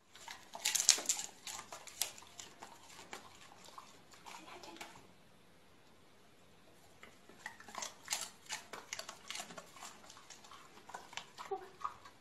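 Faint scattered clicks and rustles in short clusters, with a quiet spell in the middle, as two golden retrievers shift about on a wooden floor and tussle over a plush toy.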